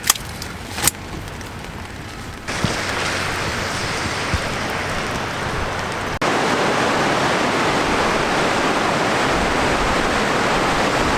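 Steady rush of turbulent water at the Reversing Falls tidal rapids, where the river runs out toward the sea around low tide. It starts about two and a half seconds in and grows louder about six seconds in. Two sharp clicks come at the very start.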